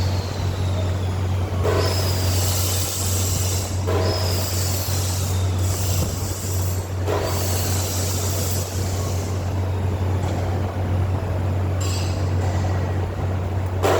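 Electric arc welding: a steady low electrical hum under a crackling hiss that changes character every couple of seconds, with faint high whistles that slowly fall in pitch.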